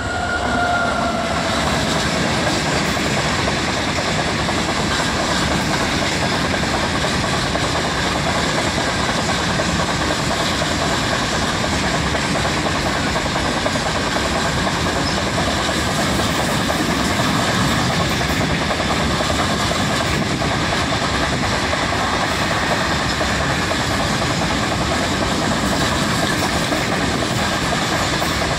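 Freight train passing close by at speed: a WAG-9 electric locomotive, its tones falling in pitch as it goes by in the first second, followed by a long rake of empty BOXN open wagons running over the rails with a steady, loud rumble and clatter.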